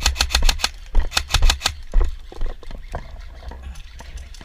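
Airsoft rifle firing rapidly, about seven shots a second, stopping about a second and a half in, followed by a few scattered shots.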